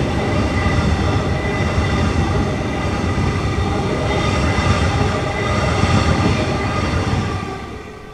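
Melbourne Metro suburban electric train passing at speed close by, loud and steady, then fading away about seven seconds in as the last car goes by.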